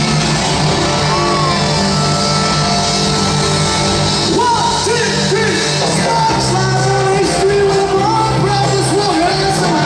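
Live rock band playing at full volume: drums, electric guitars and bass. A man's lead vocal comes in about four seconds in.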